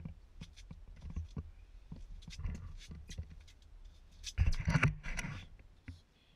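Handling noise: scattered clicks and light knocks, with a louder burst of rustling and thumps about four and a half seconds in.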